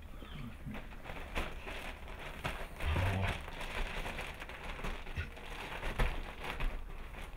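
A Bernese mountain dog restless in labour, moving about a wooden whelping box: her paws scuffing and rustling the sheet bedding and towel, with small knocks and a louder rustle about three seconds in.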